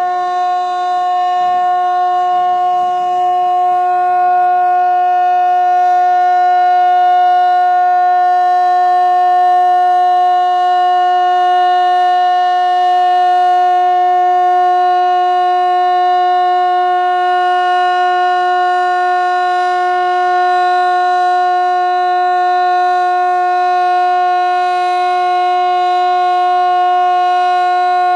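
Fire-alarm siren sounding one loud, steady, unbroken tone that holds its pitch throughout.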